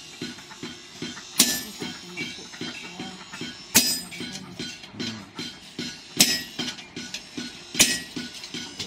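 Two-person hand forging of a knife blank on an anvil: quick, light hand-hammer taps between heavy sledgehammer blows from a striker. There are four loud, ringing sledgehammer blows, about two seconds apart.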